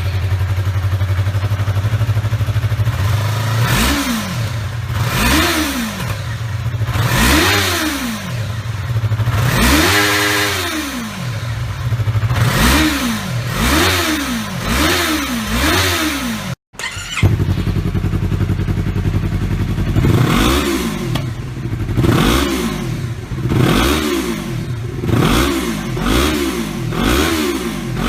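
Small-displacement sport motorcycle engine idling, then revved in a series of throttle blips through the exhaust, each rising and falling in pitch. After a brief cut about two-thirds of the way through, the blips come faster and closer together.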